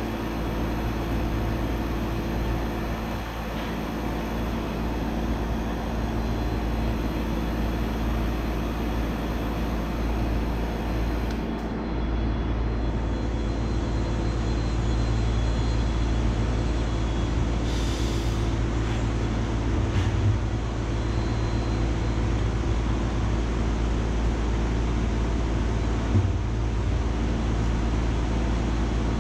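Vacuum pump running with a steady hum while it pulls vacuum through a freshly poured investment-casting flask. There is a short hiss about two thirds of the way through and a light knock near the end.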